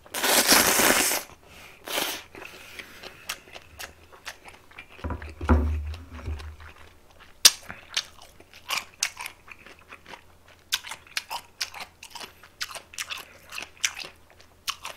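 Close-miked eating: a loud slurp of makguksu buckwheat noodles in the first second and a shorter one about two seconds in, then steady chewing with many small crunchy clicks.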